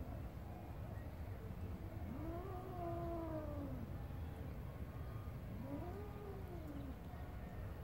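A cat giving two long, drawn-out yowls, each rising and then falling in pitch, the first about two seconds in and the second a few seconds later.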